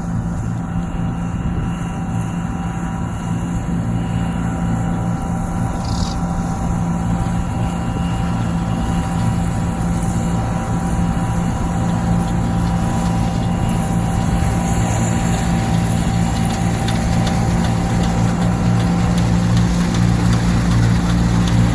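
Combine harvester running while cutting wheat: a steady machine drone with several held tones over a noisy rush, growing slightly louder toward the end.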